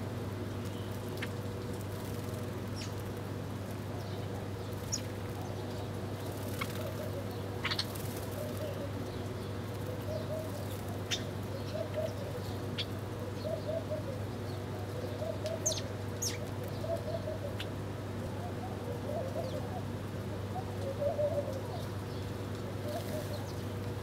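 House sparrows give short, scattered chirps while Eurasian collared doves coo low and repeatedly, over a steady low hum.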